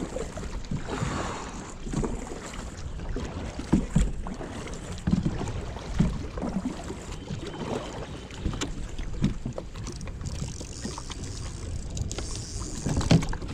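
A plastic sit-on-top kayak being paddled: paddle strokes through the water, with scattered knocks and thumps.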